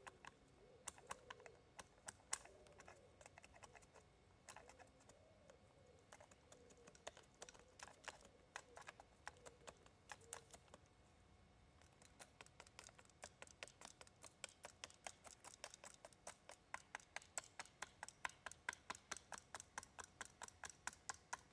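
Faint sharp clicks of a bushcraft knife cutting into a wooden spoon blank braced on a chopping block, each short carving stroke giving a crisp click. The strokes are irregular at first, then settle about halfway through into a steady run of about four a second.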